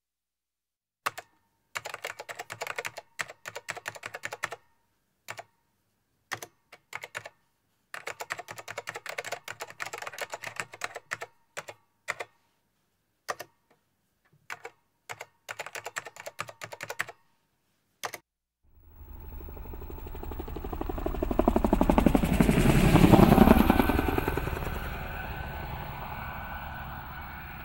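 Computer keyboard typing in stop-start bursts of rapid clicks. Near the end this gives way to a rushing noise that swells to a loud peak and then fades, with a fast pulsing underneath.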